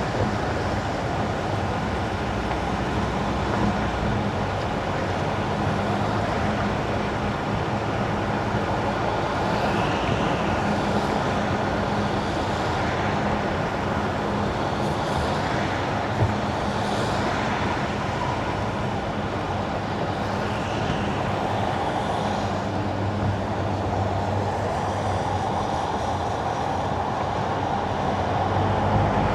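A car driving on wet asphalt: steady tyre hiss over a low drone. A few brief swishes come and go in the middle.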